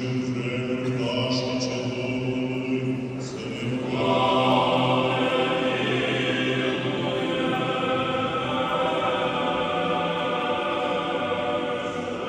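Orthodox liturgical choral chant: voices sing long held notes, and about four seconds in a fuller, louder choir takes up the chant.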